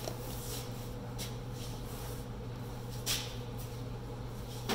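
A plastic pouch of protein bar mix being handled, with a few brief crinkles, the loudest about three seconds in, over a steady low hum.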